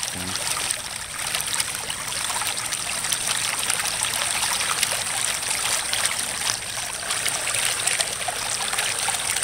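Floodwater bubbling steadily up out of a storm drain opening in the ground: the drain is backed up and overflowing instead of draining.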